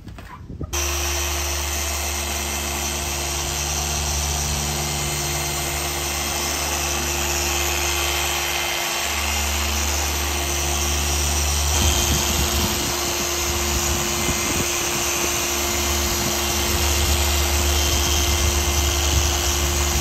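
Rupes random-orbital polisher with a foam pad running steadily against car paint while working in polish: a continuous motor whir with an even hiss over it. It comes in abruptly about a second in and gets rougher and more uneven from about halfway.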